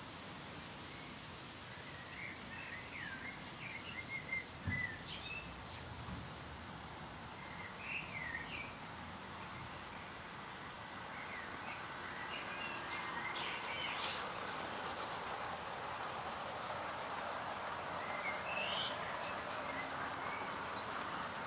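Small birds chirping now and then, with a hissing rumble that builds from about halfway through as an OO gauge model train's wheels roll along the rails toward and past.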